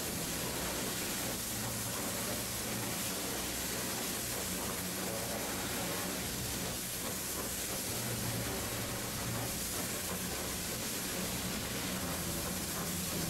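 Steady hiss of high-pressure water jets spraying inside a COMMANDO Rotawash slat washer as a plastic roadway panel passes through, with a low steady hum underneath.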